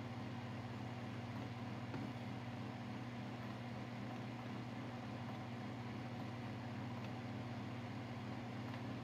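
Steady low mechanical hum, even and unchanging, like a motor or appliance running.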